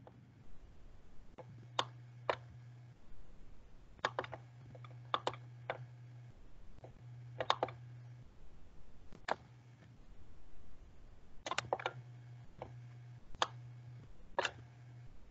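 Scattered clicks of a computer mouse and keyboard at an irregular pace, some in quick pairs or small clusters. Under them is a low hum that comes and goes.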